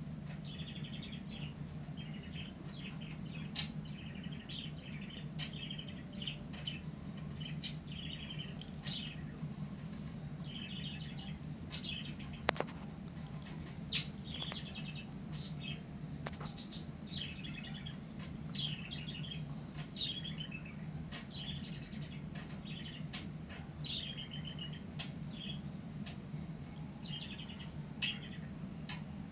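Black Labrador and Cavalier King Charles spaniel play-fighting, with frequent short, high-pitched squeaky whines and a few sharp clicks, over a steady low hum.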